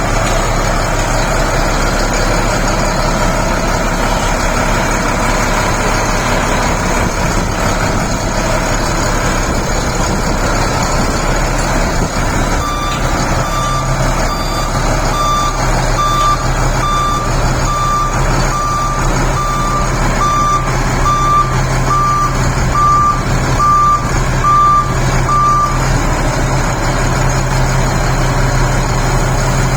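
DH17 bulldozer's diesel engine running steadily. About thirteen seconds in, a reversing alarm starts beeping about once a second and keeps on for roughly thirteen seconds, the sign that the dozer is backing up.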